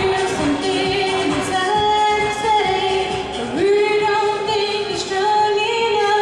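A woman singing live into a microphone over backing music, holding long notes, with a step up in pitch about three and a half seconds in.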